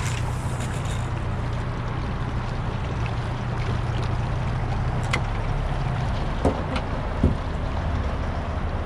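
Small fishing boat's outboard motor running steadily, under a wash of water and wind noise, with a few light knocks in the second half.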